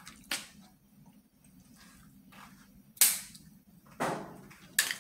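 Snow crab leg shells cracking as they are snapped apart by hand: several sharp cracks, the loudest about three seconds in.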